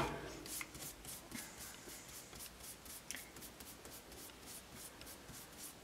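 Foam brush dabbing and stroking wet glue over a cardstock cutout stuck to a wooden board: a quick run of faint, soft brushing strokes, about four or five a second.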